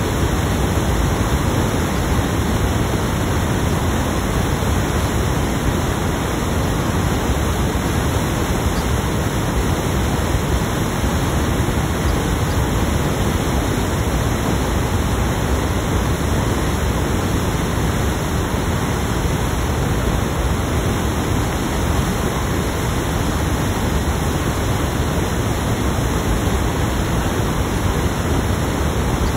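Loud, unchanging hiss of static noise filling the recording and covering any speech: a recording fault that leaves the voice inaudible.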